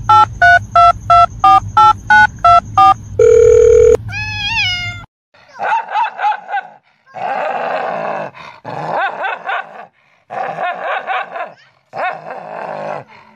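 Rapid electronic beeps, about three a second, like a phone ringtone, ending in a longer tone and a few rising chirps. Then, from about five seconds in, a dog snarls and growls in short bursts at its own reflection in a mirror.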